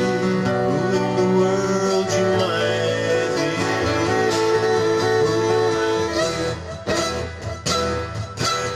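Small acoustic band playing an instrumental break: sustained, sliding melody notes from steel guitar and fiddle over strummed acoustic guitar and keyboard chords, with the strumming growing more pronounced after about six seconds.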